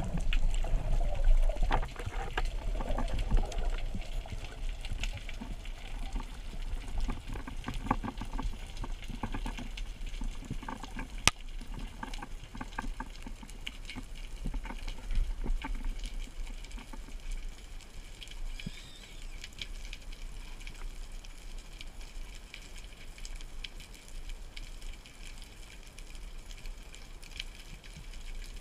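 Underwater ambience picked up by a submerged camera: a muffled wash of water with scattered clicks and crackles, busier in the first few seconds, and one sharp click about eleven seconds in.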